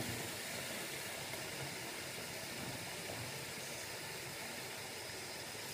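Water running steadily from a tap into a sink, an even hiss.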